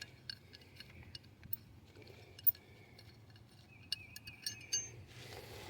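Scattered faint metallic clicks and clinks of a small nut and bolt being handled, with a few separate ticks spread through a quiet stretch.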